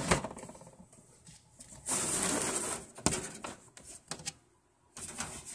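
Scattered sharp clicks and taps, with a brief rustling burst about two seconds in and another short one near the end: handling noise.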